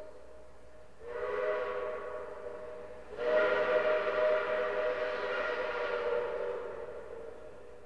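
Steam locomotive chime whistle blowing twice: a shorter blast, then a long one that slowly fades away.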